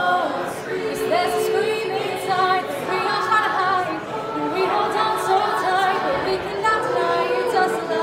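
A cappella choir singing, with a female soloist carrying the melody over the choir's long held notes.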